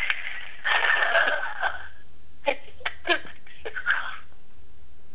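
A person laughing hard in wheezy gasps, heard through a telephone voicemail playback: one long breathy laugh about a second in, then several short, sharp gasping squeaks.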